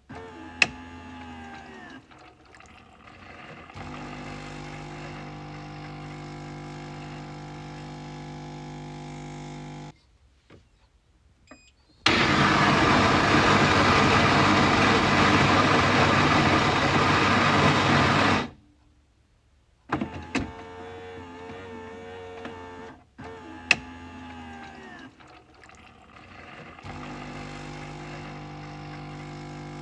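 Coffee machine working through its cycle. A click and a motor whine that slides in pitch give way to a steady pump hum. After a short pause comes a loud rushing noise for about six seconds, which stops abruptly. The sequence then starts over with another click and the whine.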